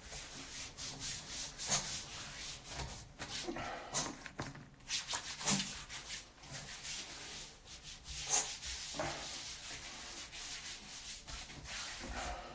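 Hands rubbing moisturising cream between the palms and over bare skin: irregular rubbing strokes with a few sharper scuffs.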